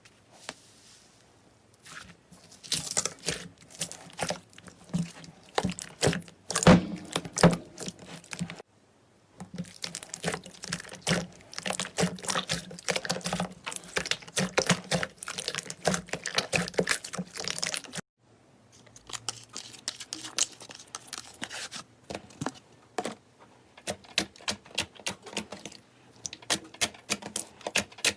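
Slime being squished and worked, making rapid wet clicks and crackles in three stretches separated by brief pauses.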